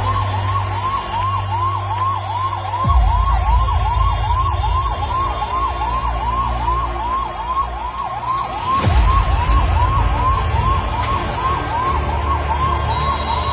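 Electronic emergency-vehicle siren, most likely a fire engine's, sounding a fast yelp of about three sweeps a second, continuously. Under it runs a steady low rumble, with two louder low jolts about three seconds in and about nine seconds in.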